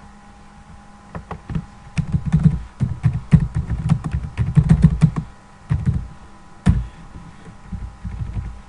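Typing on a computer keyboard: a quick run of key presses lasting several seconds, followed by a few scattered taps.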